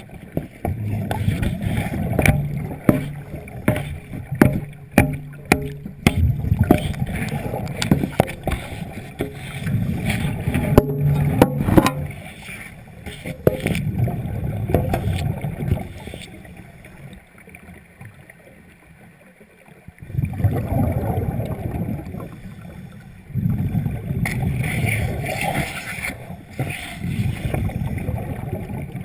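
Underwater sound of a diver's breathing: bursts of exhaled bubbles lasting a few seconds each, with a quieter pause about two-thirds of the way through. Scattered clicks and knocks run through it.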